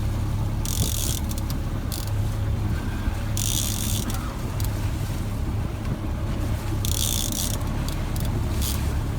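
A boat's engine running steadily with a low drone, with three short bursts of rushing hiss, each about half a second long.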